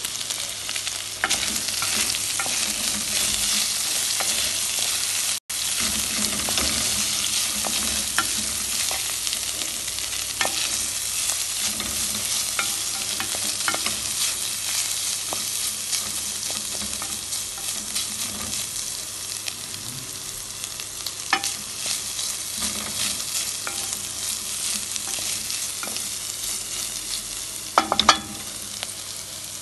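Steak strips and green bell pepper sizzling in bacon fat in a pot while a wooden spoon stirs them, with scrapes and light knocks of the spoon against the pot. A louder couple of knocks come near the end.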